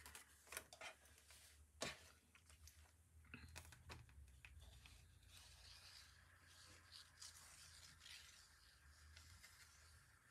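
Faint rustling and small taps of paper card being handled and pressed into place, with a sharper click about two seconds in, over a low steady hum; otherwise near silence.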